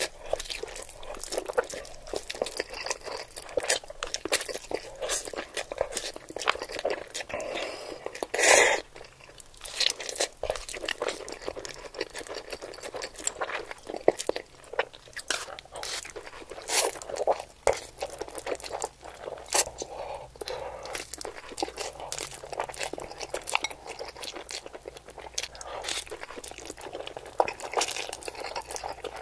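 Close, irregular crunching: many crisp crackles and clicks, with a louder crunch about eight and a half seconds in.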